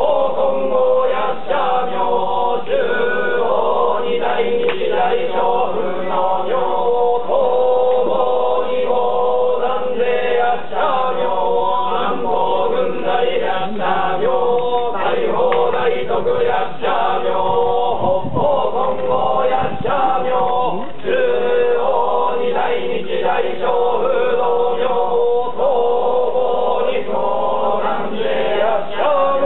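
Yamabushi priests chanting a Buddhist recitation together in a steady, near-monotone drone.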